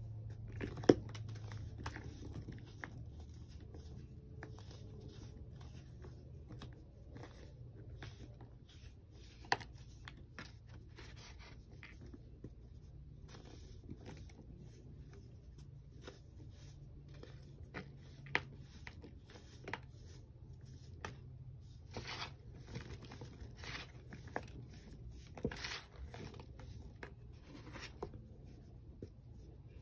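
Fingers crushing and crumbling chunks of packed baking soda in a plastic tub: irregular soft crunches and crackles of the breaking powder, with a few sharper, louder cracks along the way.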